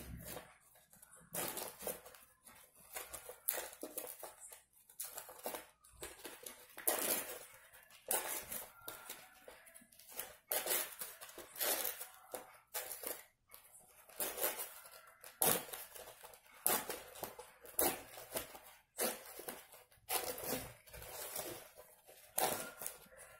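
Dry corn husks rustling and crackling in short, irregular bursts as hands slit them and press them against a paper cone.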